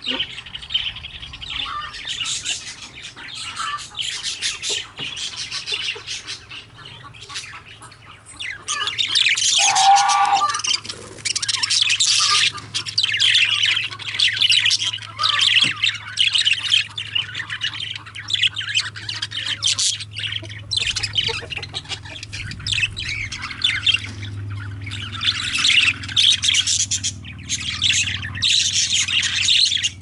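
Budgerigars chattering and calling continuously, a dense flock of rapid high-pitched calls.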